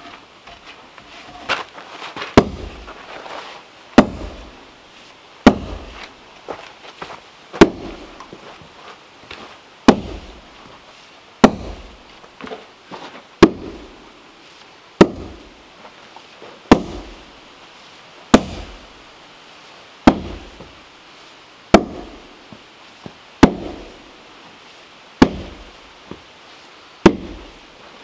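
A sledgehammer repeatedly striking a wooden log, a sharp knock with a short dull thud about every second and a half, about fifteen blows in all.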